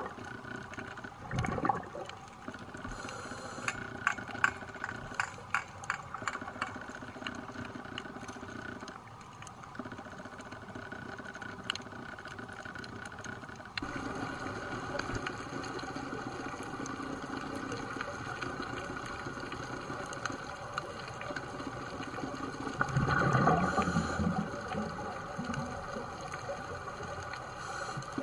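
Underwater ambience heard through a dive camera's housing: the steady drone of a boat engine carried through the water, with a patch of sharp clicks for a few seconds early on. Rushing bursts of a diver's exhaled regulator bubbles break in briefly near the start and for about a second and a half later on.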